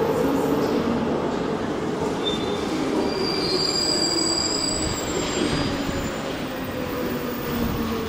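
Glasgow Subway train running into the station along the platform: a steady rumble of wheels on rail, with thin high wheel squeals from about two seconds in that step up in pitch over the next few seconds.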